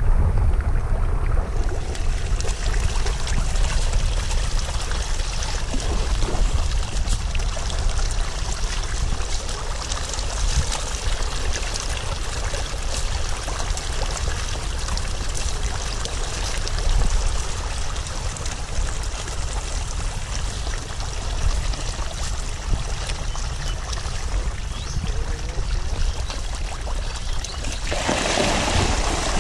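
Dense crackle of splashing water from a crowd of fish churning and jostling at the surface of a pond for feed. Near the end the splashing grows louder as feed pellets are scattered onto the water.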